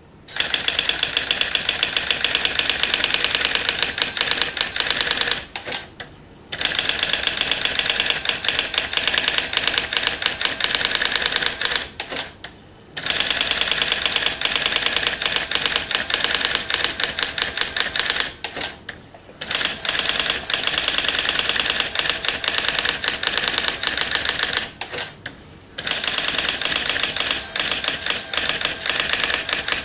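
Brother AX-20 electronic daisy-wheel typewriter printing fast, continuous runs of character strikes, pausing briefly about every six or seven seconds.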